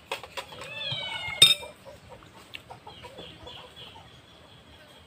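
A short animal call falling in pitch about a second in, from a cat or a chicken, with a sharp click just after it. Faint small clicks follow.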